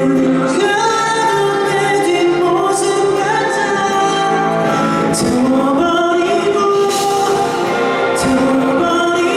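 Live music with singing: the opening of a ballad, held notes shifting in pitch every second or so.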